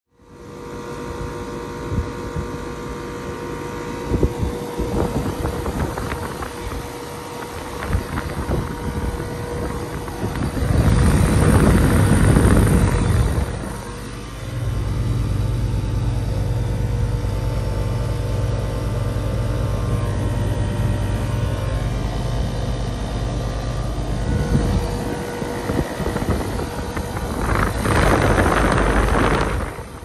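2021 OxBox heat pump outdoor unit running in heat mode: a steady mechanical hum from the compressor and condenser fan, with a strong low drone through the middle. Louder rushing noise swells twice, around eleven seconds in and again near the end.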